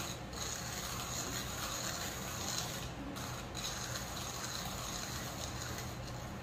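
Hand-cranked manual burr coffee grinder grinding whole coffee beans to a medium-fine setting, the crank turning continuously.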